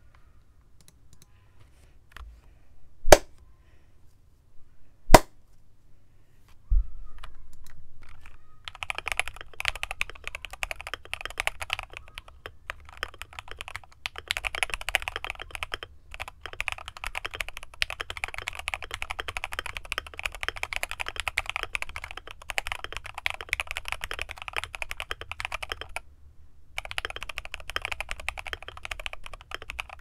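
Custom Akko MOD007 mechanical keyboard with an aluminium plate, lubed and filmed JWK Black linear switches and Akko ASA keycaps: two loud single clicks, then from about eight seconds in, fast continuous typing with a clean sound and some thack, pausing briefly near the end.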